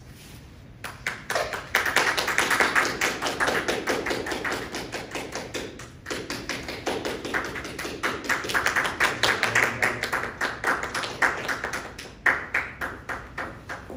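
Small audience applauding: a dense patter of hand claps that swells about a second in, holds, and fades out near the end.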